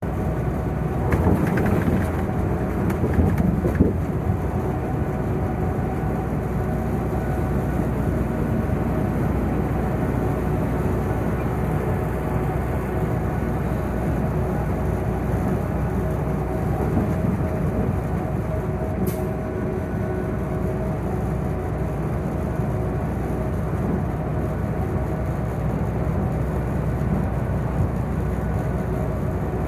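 Semi truck travelling at highway speed: a steady engine drone under continuous road and wind noise. There is some rattling in the first few seconds and one sharp click about two-thirds of the way through.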